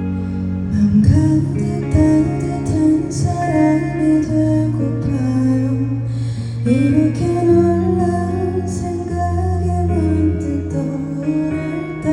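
Music: a song with guitar and a singing voice over sustained bass notes.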